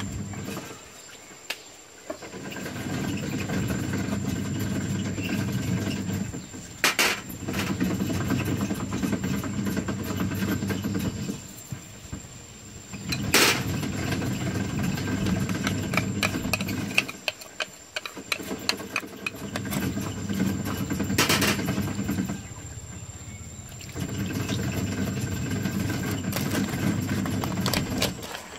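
Snails in their shells rattling and scraping in a metal wok as they are stirred with a wooden spatula, in bouts of several seconds with short pauses between, and a few sharp knocks.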